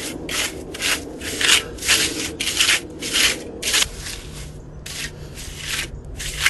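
A plastering tool scraping back and forth over a reed screen bedded in fresh earth plaster, in quick, regular strokes about three a second that grow fainter after about four seconds. The strokes work the plaster into and through the reeds.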